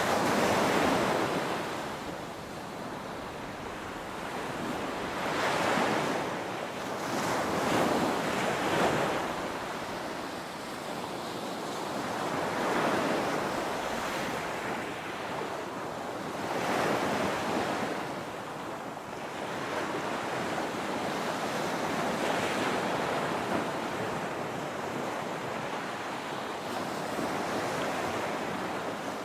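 Ocean waves breaking on a beach, a steady wash of surf that swells and fades with each wave every few seconds.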